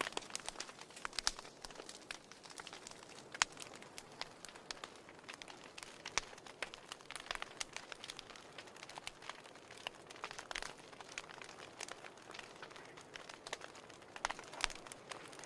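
Wood fire burning in a fireplace, crackling with irregular sharp snaps and pops over a soft steady hiss.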